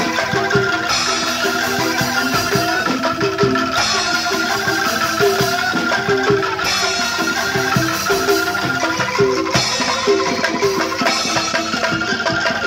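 Traditional percussion music accompanying a lion dance: mallet-struck metal or wooden keys play a short repeating melody over steady drum beats.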